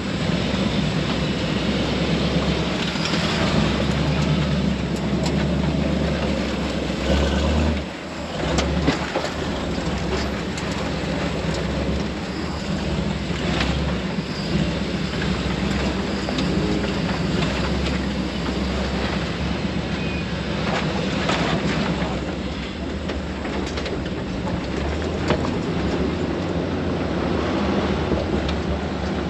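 Off-road recovery rig's engine running at crawling speed over a rough rock trail, with frequent rattles and clanks from its hanging chains and body. The engine note dips briefly about eight seconds in.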